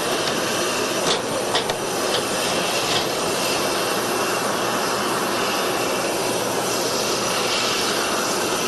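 Steady whine and rush of jet aircraft engines running on an airport apron, with a few brief sharp clicks between about one and three seconds in.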